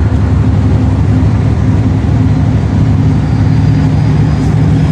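Tugboat diesel engines running steadily under load, a loud low drone with a deep hum that grows a little stronger about three and a half seconds in.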